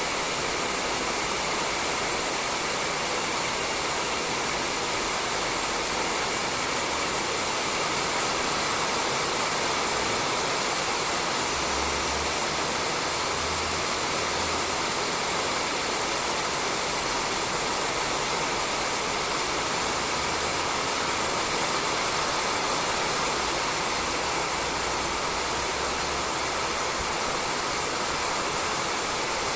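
Steady rain falling on a roof: an even, unbroken hiss of drops with no distinct individual hits.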